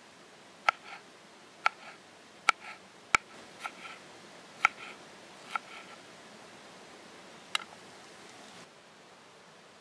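Knife slicing a green chili pepper on a wooden cutting board: about eight sharp knocks of the blade against the board, roughly one a second and unevenly spaced, stopping a couple of seconds before the end.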